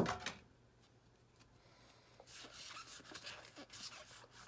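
A short sharp click at the very start, then from about two seconds in, Pokémon trading cards sliding and rubbing against each other in soft, irregular rustles as a small stack is fanned out in the hands.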